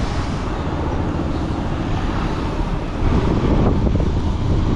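Wind buffeting the microphone over the running noise of a moving vehicle on the road. It gets a little louder about three seconds in.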